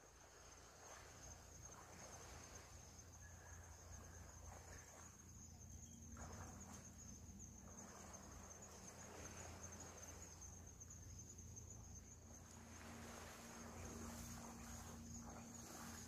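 Near silence: faint outdoor ambience with a steady high-pitched insect drone and a soft wash that swells and fades.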